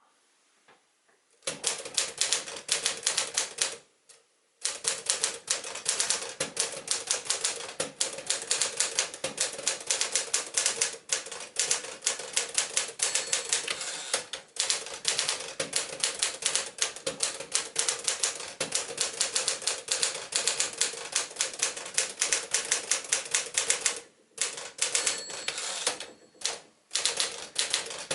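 Smith-Corona-built Tower Quiet-Tabulator manual typewriter (a 5-Series machine) being typed on: a fast, steady run of key strikes, with brief pauses about four seconds in and again near the end.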